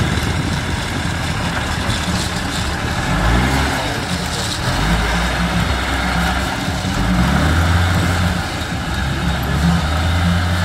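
John Deere 3650 tractor's six-cylinder diesel engine running as the tractor reverses. The engine note rises and shifts about three to five seconds in, then holds steady.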